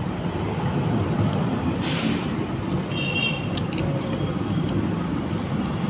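Steady rumbling vehicle noise, with a short hiss about two seconds in.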